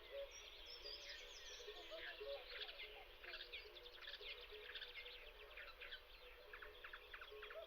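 Faint natural ambience of many small birds chirping: quick, overlapping chirps and short falling notes running on without a break.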